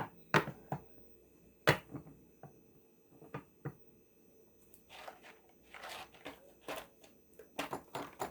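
Hands handling objects: scattered sharp clicks and knocks, then short rustling scrapes in the second half.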